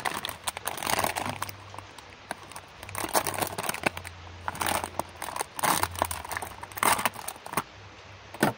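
Metallized anti-static plastic bag crinkling and rustling in the hands as it is pulled open, in irregular bursts.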